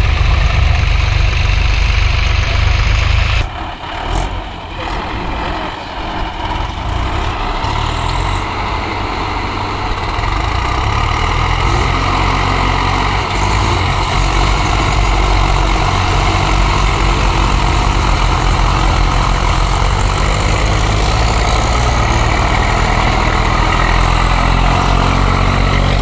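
Swaraj farm tractors' diesel engines running steadily and low in wet sand. The sound drops sharply about three and a half seconds in, then builds back to a steady run.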